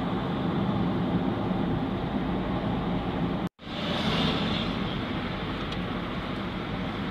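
Steady road and engine noise of a moving car, with a brief total dropout about three and a half seconds in.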